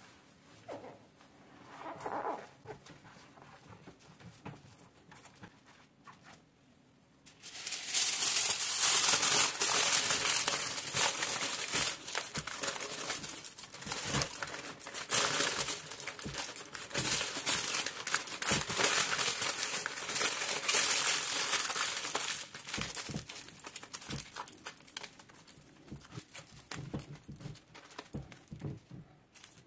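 Aluminium foil crinkling and crackling loudly as a sheet is crumpled, wrapped and pressed around a metal lever door handle. It starts suddenly about seven seconds in and goes on in irregular crackles, growing sparser near the end.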